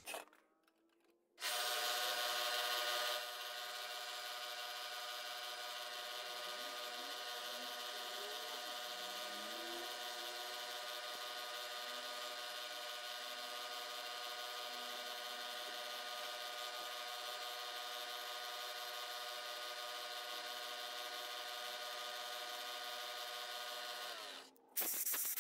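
Milling machine end mill face-milling a Delrin plastic part, decking off the top, with a steady whine of many tones. It starts about a second and a half in, is louder for the first couple of seconds, then runs evenly and stops abruptly near the end.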